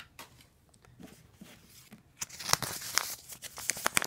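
Small paper blind-bag packet being handled and torn open: crinkling and tearing paper with many sharp little clicks, starting about two seconds in after a quiet stretch and growing louder.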